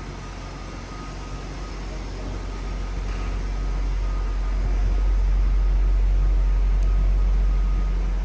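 Jaguar XJ Sport's V8 engine idling with a steady low rumble, growing louder through the middle and easing slightly near the end.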